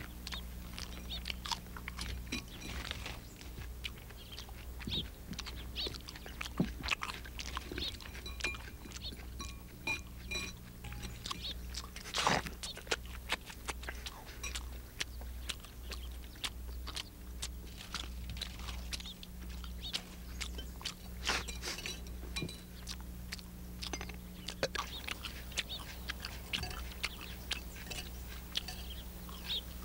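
People eating: chewing, smacking and crunching food, with many short irregular clicks, over a steady low hum.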